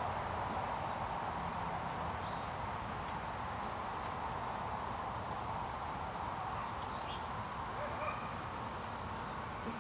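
Rural outdoor ambience: a steady background hiss with scattered faint, high bird chirps.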